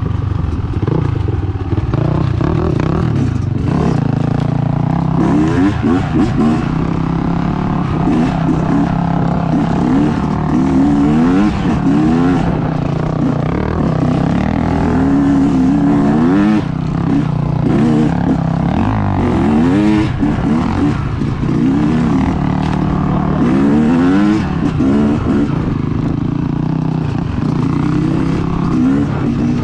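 Yamaha YZ250X two-stroke dirt bike engine riding a dirt trail, revving up and down again and again as the throttle is opened and closed.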